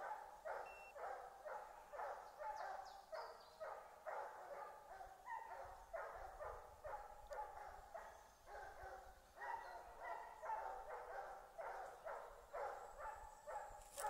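Hunting dogs baying a wild boar that is standing its ground: faint, steady barking at about two to three barks a second, keeping on without a break.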